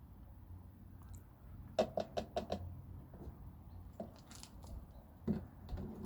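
Light knocks and clicks from handling things: a quick run of about five knocks about two seconds in, then scattered clicks and a heavier knock near the end.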